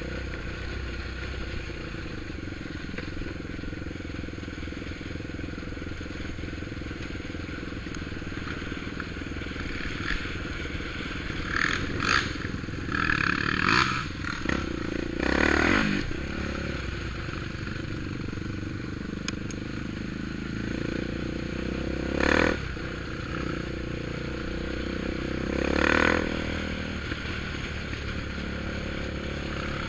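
ATV engine running steadily, with several short, louder swells of noise about twelve to sixteen seconds in, and again around twenty-two and twenty-six seconds.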